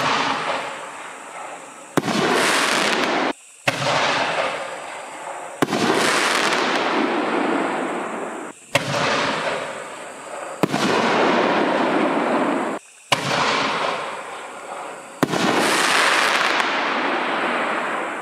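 Consumer single-shot firework tubes going off: about eight sharp bangs a second or two apart, each trailing into a long fading hiss. Several of the tails cut off abruptly.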